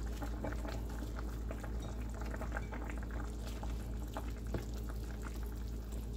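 Large stainless pot of pork sinigang soup boiling, with many small bubbles popping, as a ladle stirs the cabbage in; one sharper tap about four and a half seconds in. A steady low hum lies beneath.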